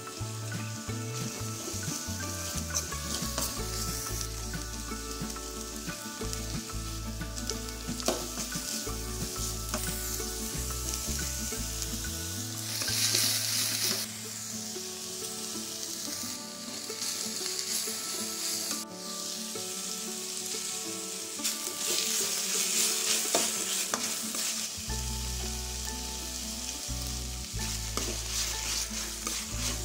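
Chopped vegetables sizzling in hot oil in a stainless steel kadai while they are stirred and tossed with a spatula, with occasional clinks of the spatula on the pan. The sizzle flares louder twice, once midway and once later on.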